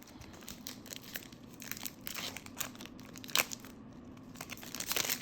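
Foil wrapper of a Pokémon Battle Styles booster pack being crinkled and torn open: a run of irregular crackles, with one sharp snap a little past halfway and a louder burst of crinkling near the end.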